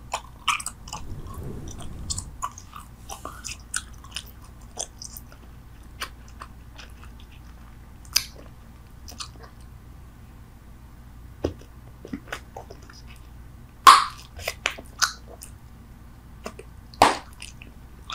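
Bubble gum chewed close to the microphone: wet clicks and smacks, busy for the first few seconds, then sparse, with two louder sharp snaps in the last third.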